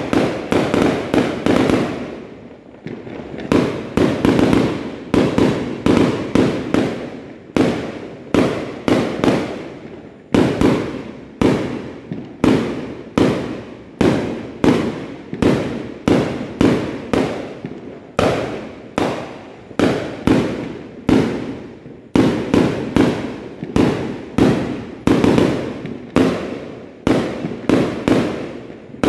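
Aerial fireworks bursting overhead in quick succession, about two sharp bangs a second, each dying away with a rumbling tail, with a brief lull about two seconds in.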